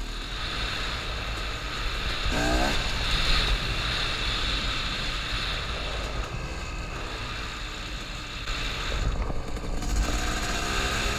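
KTM two-stroke supermoto engine running as it is ridden, revving up sharply about two seconds in and climbing again near the end.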